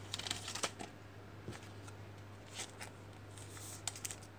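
Faint handling of a trading card and plastic card holders: a few light clicks and rustles over a steady low hum.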